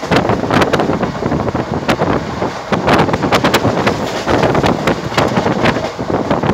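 Express passenger train running at speed, heard from an open coach door: the wheels clatter in quick, irregular clicks over the track while wind rushes steadily over the microphone.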